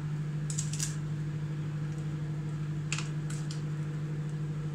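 Teaspoon scraping and clicking against a small plastic tub of soft curd cheese as sugar and cinnamon are stirred in: a few quick strokes about half a second in and again about three seconds in. Under it, a microwave oven is running with a steady hum.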